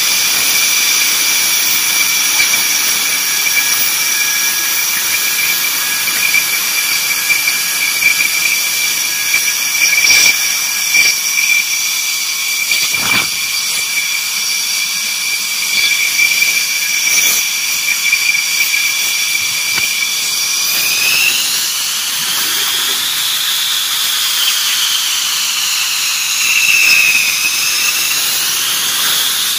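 Dassault Rafale fighter jet engines running on the ground, a loud, steady high-pitched turbine whine made of several stacked tones. About twenty seconds in, the whine rises in pitch and then wavers up and down.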